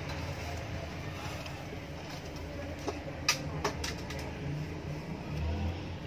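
Steady low background rumble, with a few sharp clicks about three to four seconds in.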